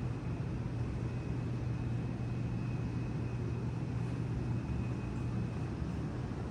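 Steady low hum with an even rushing noise and a faint high whine above it: a building's ventilation system running.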